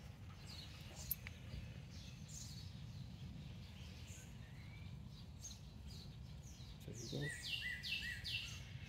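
Quiet outdoor ambience with a steady low rumble. A songbird calls faintly now and then, and near the end it sings a quick run of about four falling notes.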